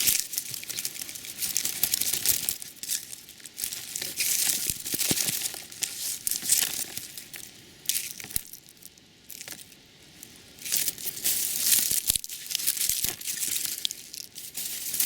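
Dry garlic leaves and stalks rustling and crackling as the freshly pulled plants are handled, with small snaps and tearing sounds. There is a quieter spell around the middle.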